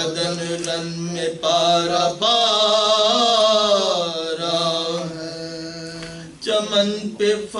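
A man's voice chanting soz, the unaccompanied Urdu elegy of Shia mourning, in long drawn-out notes. Short phrases give way, about two seconds in, to one long held phrase that slides slowly down in pitch before breaking off near the end.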